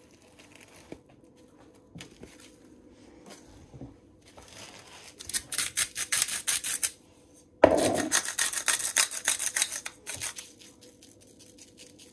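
Hand-twisted pepper grinder grinding peppercorns over a raw ribeye steak: rapid rasping clicks in a bout about four and a half seconds in, then a knock and a second, louder bout of grinding about seven and a half seconds in.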